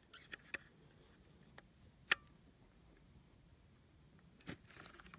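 Small plastic clicks and taps from an SD card being fitted into a trail camera's card slot, with a few faint ticks near the start and end and one sharp click about two seconds in.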